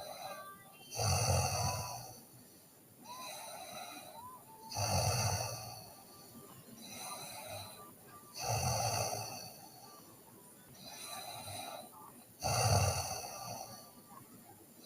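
A sleeping teenage girl snoring in a slow, steady rhythm: four loud snores about four seconds apart, with quieter breaths between them.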